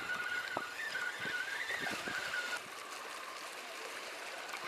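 Fishing reel being wound in, a steady whir that wavers slightly in pitch and stops suddenly about two and a half seconds in, with a few light knocks.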